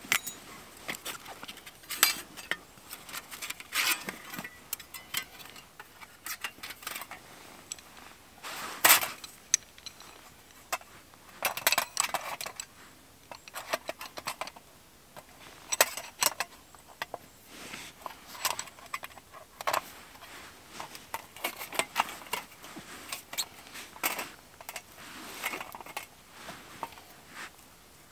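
Metal clinking and rattling as a tripod of metal rods joined by a ring is spread open and an iron fire pan is fitted onto it. The clinks are irregular and scattered throughout, with the sharpest about nine seconds in.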